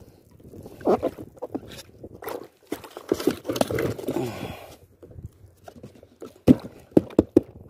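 Choppy water splashing against a kayak's hull in uneven bursts, then four sharp knocks on the kayak near the end.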